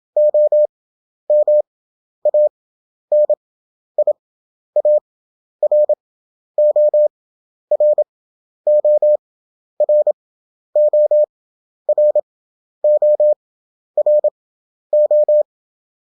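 Morse code practice tone: a single mid-pitched beep keyed in short and long elements (dits and dahs). Characters are sent fast at 27 words per minute, each followed by a gap of about a second (Farnsworth spacing, 11 wpm effective).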